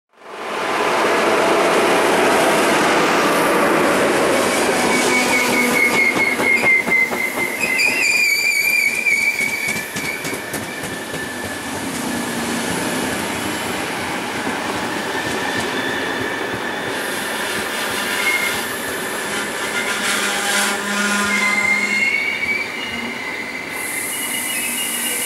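RegioJet passenger coaches rolling along the rails, with a steady rumble and clatter of wheels over the track. A warbling squeal from the wheels comes in twice, a few seconds in and again near the end.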